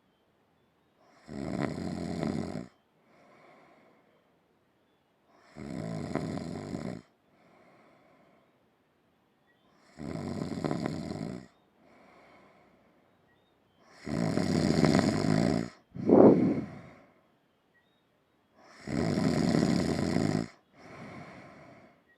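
Snoring in sleep: five loud snoring breaths in, about four to five seconds apart, each followed by a softer breath out. Just after the fourth there is a short, sharp snort, the loudest sound here.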